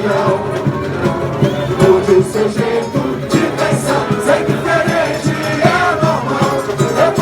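Samba school bateria playing a driving samba beat on massed drums and percussion, with voices singing the samba over it.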